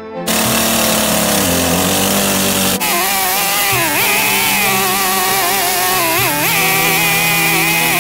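Petrol chainsaw running under load, cutting into a spalted apple log; its engine pitch dips briefly twice as the chain bites into the wood.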